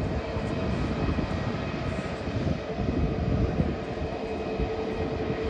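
Airbus A320neo's CFM LEAP-1A turbofan engines running at taxi idle as the airliner rolls along the taxiway. It is a steady jet hum with a held mid-pitched tone that grows stronger about halfway through.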